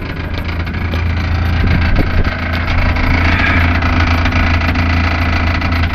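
Ford Mondeo Mk3 2.0 TDCi diesel engine idling out of gear with a steady low hum and a light rattle at tick over, a rattle the owner sets out to cure with new exhaust hanger rubbers.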